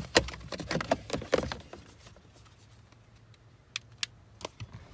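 Irregular clicks and knocks of hands handling tools and plastic parts, dense for the first couple of seconds, then a few isolated clicks near the end.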